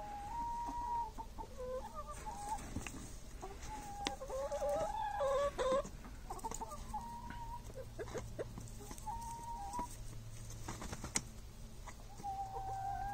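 Hens clucking: a run of short calls and some drawn-out notes, with a few light knocks in between.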